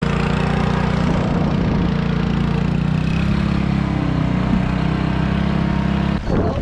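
Boat engine running steadily at a constant speed. Near the end it gives way abruptly to wind buffeting the microphone.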